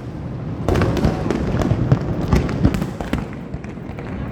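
Fireworks display going off: rapid, overlapping bangs and crackles over a continuous low rumble of bursts, coming thickest from about a second in.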